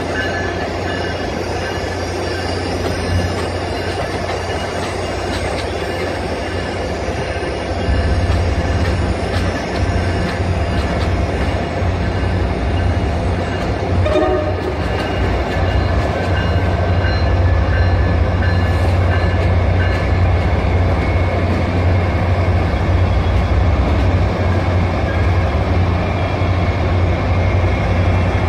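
MBTA commuter rail train moving through the station, pushed by its diesel locomotive, an HSP-46. The locomotive's deep, steady engine rumble grows louder about eight seconds in as it draws near, under a wash of rail noise.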